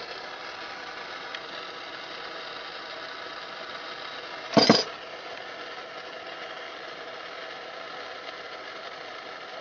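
Soldering torch flame burning steadily with a low hiss while it heats a brass shutoff valve joint on copper pipe. One sharp clank about halfway through.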